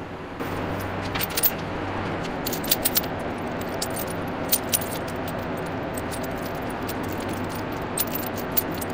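Steel tractor tire chains clinking and jingling as they are handled and pulled across a concrete floor, with scattered sharper clinks of links, over a steady background hum.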